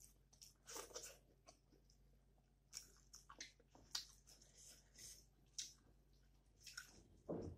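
Faint close-up chewing: a person eating a mouthful of rice and curry, with soft wet mouth clicks and smacks at irregular intervals, a slightly louder one near the end.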